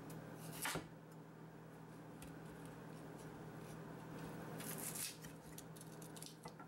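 Faint knocks of a chef's knife cutting carrot on a wooden cutting board, one louder knock about a second in and a brief cluster of knocks near five seconds, over a steady low hum.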